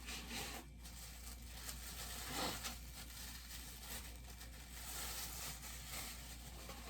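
Packaging rustling and crinkling as a bobblehead's base is unpacked by hand, with a louder scrape about two and a half seconds in.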